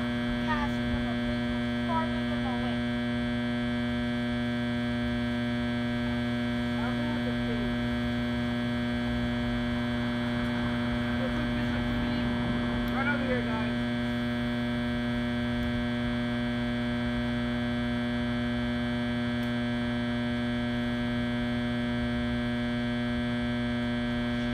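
Steady hum made of many fixed tones from a faulty generator, drowning out the outdoor sound. A few faint short chirps come through about a second in, around seven seconds in and around thirteen seconds in.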